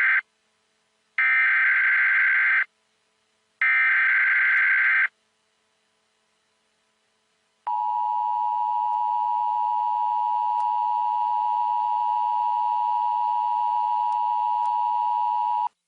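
Emergency Alert System broadcast signal. First comes the end of one burst of the screeching digital header data, then two more bursts of about a second and a half each. After a pause of a couple of seconds, the steady two-tone attention signal (853 and 960 Hz) sounds for about eight seconds and cuts off abruptly, announcing a tornado warning.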